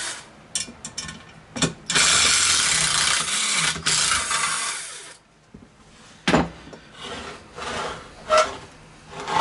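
Socket ratchet wrench clicking in two long runs as the bolts holding the exhaust bracket on a Tillotson 212cc engine are loosened, with a few metal clicks and knocks before and after.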